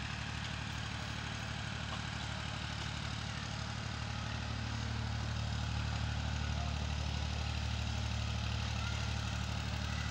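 A steady low engine drone that grows louder about five seconds in.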